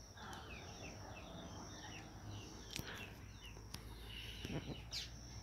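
Faint bird chirps: many short calls in quick succession over a low, steady background hiss.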